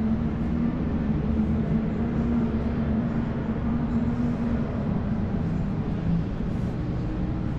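Steady low rumble of background noise with a faint hum in it.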